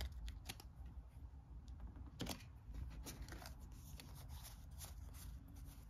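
Faint rustling and light clicks of a deck of card-stock game cards being picked up and fanned out in the hands, with one sharper click about two seconds in.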